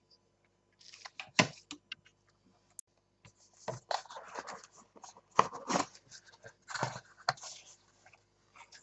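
Unboxing handling noise: irregular rustling of packaging with sharp knocks and clicks, the loudest about one and a half seconds in and again about five and a half seconds in.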